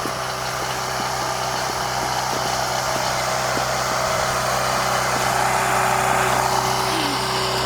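A steady machine hum like an engine running, under an even hiss, growing slightly louder.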